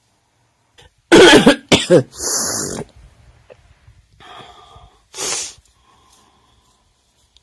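A person coughing: two loud coughs about a second in, a breathy rasp after them, and another short cough a little after five seconds.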